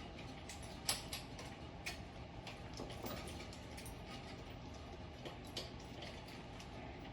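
Scattered light clicks and taps of metal parts being handled as an e-bike's rear wheel axle and keyed washer are worked into the frame dropouts.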